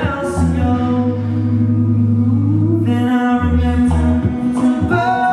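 Male a cappella vocal group singing close harmony into microphones, with chords shifting and a long, low bass note held for about two seconds, starting about a second in.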